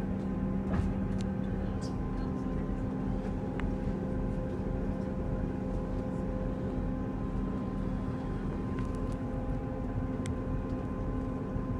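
Steady drone of a moving train heard from inside the carriage: an even low rumble with a constant engine hum, and a few faint clicks.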